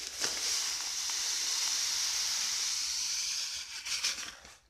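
Granulated tapioca pouring from a plastic packet into a glass dish of water: a steady hiss of falling pellets that thins to a scattered patter and stops about four seconds in.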